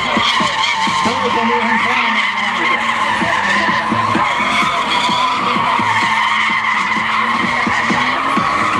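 BMW Z3 coupé doing a burnout, its rear tyres squealing steadily as it circles, with the straight-six engine held at steady high revs underneath.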